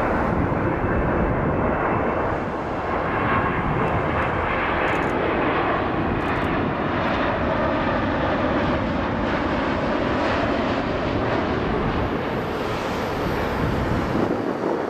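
British Airways Boeing 787-8 Dreamliner's twin jet engines on landing approach with gear down: a steady, loud rushing roar. A thin high whine comes in near the end.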